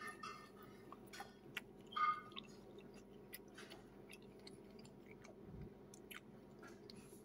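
A person chewing a mouthful of food: soft, scattered mouth clicks and smacks, with one brief louder sound about two seconds in, over a faint steady hum.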